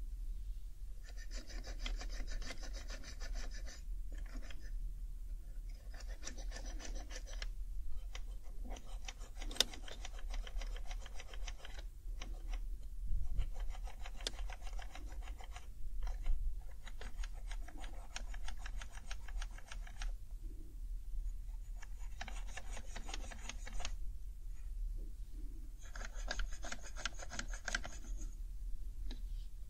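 An alcohol pad is scrubbed fast back and forth over the plastic keycaps of an HHKB Professional 2 keyboard, giving a dry, rasping rub. It comes in several stretches of one to four seconds with short pauses between, and there are a couple of sharp ticks along the way.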